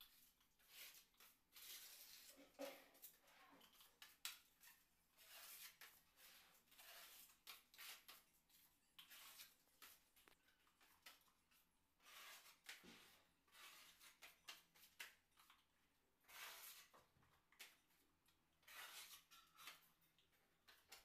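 Faint scraping of a putty blade spreading wall putty across a plastered ceiling, in a run of uneven strokes about a second long each.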